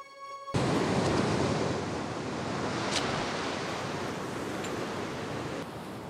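Ocean surf breaking and washing on a rocky beach, a steady rushing noise. It starts suddenly about half a second in as soft music cuts off, with one light click about three seconds in.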